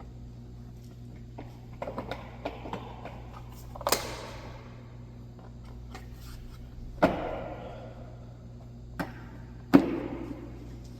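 Several sharp knocks and clicks of tools and car parts being handled and set down, a few with a short ringing tail, the loudest one near the end, over a steady low hum.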